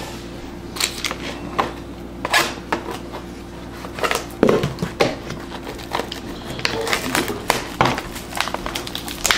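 Trading cards and their foil-wrapped packaging handled on a wooden desk: scattered light taps, clicks and rustles, with a few firmer knocks about halfway through, under a steady low hum.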